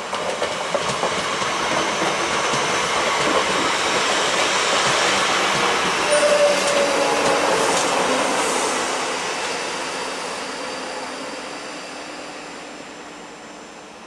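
Electric multiple-unit passenger train running past on the line, growing louder to its loudest about halfway through and then fading away. A brief squeal comes about six seconds in.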